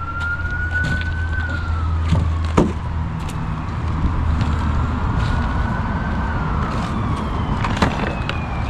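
A siren wailing in slow rises and falls, over a low steady hum and a few sharp clicks.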